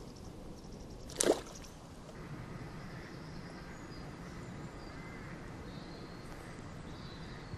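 Quiet outdoor ambience with one short, sharp sound about a second in.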